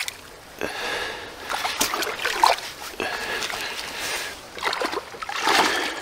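Shallow water splashing and sloshing around a lake sturgeon as it thrashes while held by hand, in short irregular splashes.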